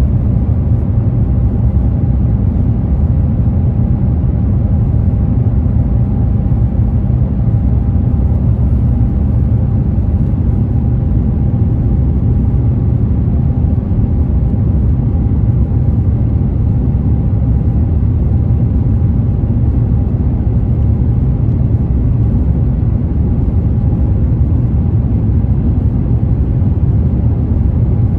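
Steady low rumble of an Airbus A350's Rolls-Royce Trent XWB engines and rushing air, heard inside the cabin as the airliner climbs out after takeoff, with a faint steady whine above it.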